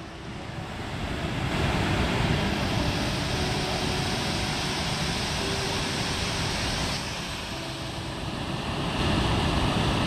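Hooker Falls, a broad, low waterfall, giving a steady rush of falling water. It swells over the first second or two, drops a little about seven seconds in and comes back up near the end.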